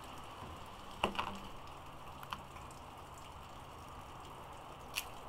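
Hands breaking up and peeling garlic cloves at a wooden cutting board: a light knock about a second in and a few small clicks, over a faint steady hum.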